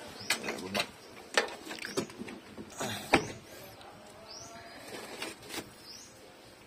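Scattered metallic clinks and knocks of hand tools being worked on the engine, with a few short bird calls in the background.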